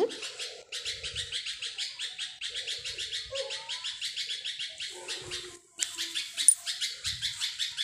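Rapid, even chirping of a small bird, about ten chirps a second, with brief breaks about a second in and again near six seconds in. Underneath are a few soft knocks and scrapes of a steel spoon against a steel kadhai as food is scooped out.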